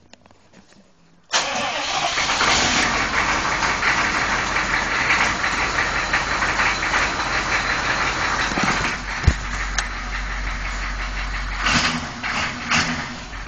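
A 6.5 L turbo diesel V8 starting for the first time after a cylinder head replacement. It catches suddenly a little over a second in and runs steadily, with one sharp click about nine seconds in, after which it runs a little quieter. The owner takes the running engine for healthy.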